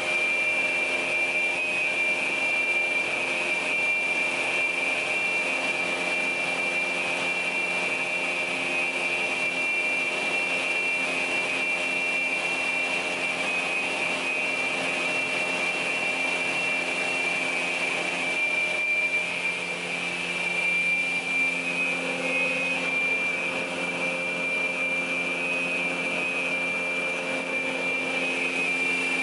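PAUL K3U800 multi-rip saw running steadily: an even machine hum with a high-pitched whine over it.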